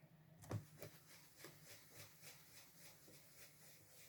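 Stencil brush dabbing ink through a stencil onto card: faint, regular soft taps about three a second, with one firmer thump about half a second in.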